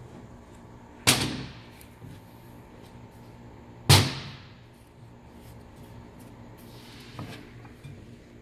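Two sharp metallic clanks about three seconds apart, each ringing briefly, then a few lighter knocks near the end: brake caliper parts and tools being handled and set down on a hard surface.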